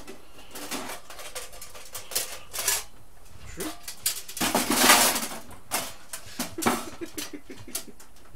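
Thin stainless-steel panels of a folding camp stove clinking, knocking and scraping as they are handled and slotted together, in a string of sharp metallic clicks, loudest about halfway through.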